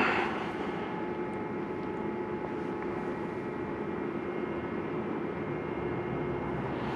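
Steady droning background noise inside a large stone church, with a faint steady hum running through it.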